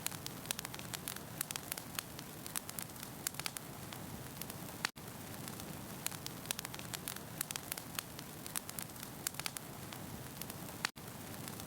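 Wood fire crackling in a fireplace: a steady hiss with many small sharp pops and snaps. The sound cuts out for an instant about five seconds in and again near the end, where the recording loops.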